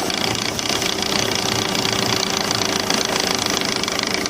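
Noise from under a rear-drive vehicle with a worn, dry universal joint on its spinning propeller shaft: a steady metallic whirring with fast knocking, like metal grinding inside and something slapping as the shaft turns.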